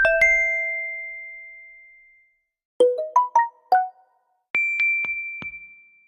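Samsung Galaxy Watch notification tones playing one after another. First a two-note chime that rings out over about two seconds, then a quick run of about five short notes about three seconds in, then a single high ding that fades out near the end.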